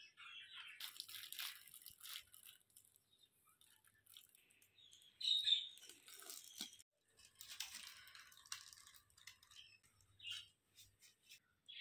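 Faint crinkling of a clear liner sheet and light metal clicks and scrapes as a springform pan's clasp is opened and its ring is lifted off a cake. There is one louder crackle about five seconds in.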